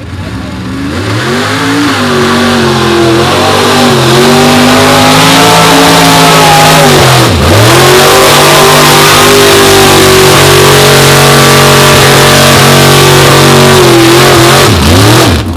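Mud-bog race truck engine at wide-open throttle, revs climbing over the first couple of seconds and then held high and steady, with a brief sharp drop about halfway through and another drop near the end.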